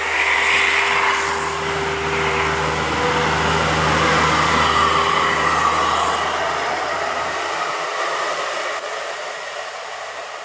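Bus driving past, its engine and tyre noise loud at first and then fading slowly over several seconds. No horn is sounded.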